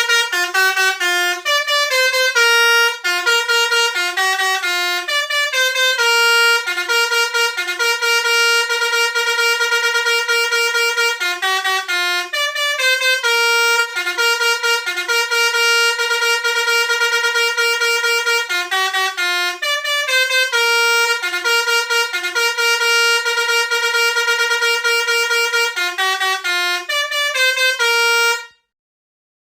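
Basuri telolet multi-tone bus air horn playing a melody: quick runs of short stepping notes alternating with longer held notes, loud. It cuts off shortly before the end.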